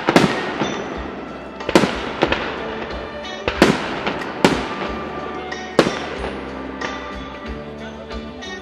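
Aerial firework shells bursting: about six sharp bangs, each with a crackling, echoing tail, mostly in the first six seconds, over music playing throughout.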